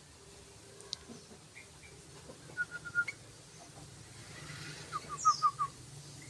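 Yellow-vented bulbul (trucukan) calling in quick runs of short repeated notes: four notes a little under three seconds in, then five louder ones near the end.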